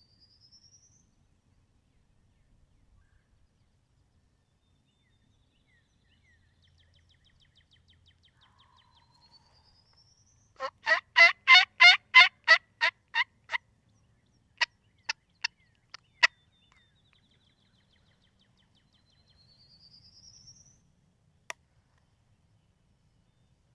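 A loud, close series of about a dozen turkey yelps in a steady run, followed by four or five sharp, separate clucks. Faint rising whistled songbird notes come before and after.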